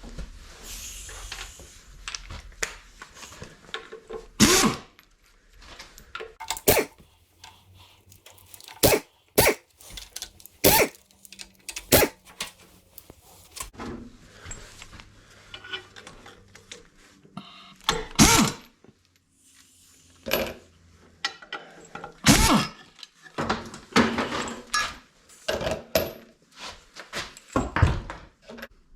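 Hand tools and bolts knocking and clattering on a Ford 460 big-block V8 while its exhaust manifold is being unbolted: irregular sharp knocks and clatter, a dozen or so louder ones among smaller rattles.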